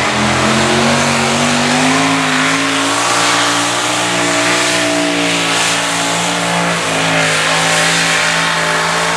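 Multi-engine modified pulling tractor with several supercharged engines running wide open under load as it drags the weight-transfer sled. The engine note climbs over the first few seconds, then holds steady and loud.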